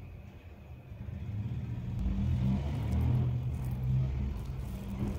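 A low rumble that swells from about a second in and eases off toward the end, with a few faint soft clicks above it.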